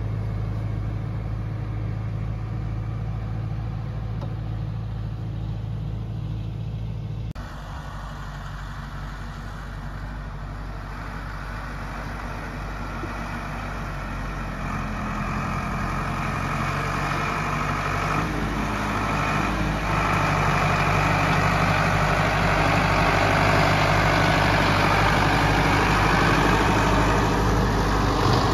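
Zetor Forterra 140 HSX tractor's four-cylinder diesel engine running steadily while it pulls a log-loaded forestry trailer. After an abrupt change about seven seconds in, the engine grows louder as the tractor comes closer and stays loud near the end.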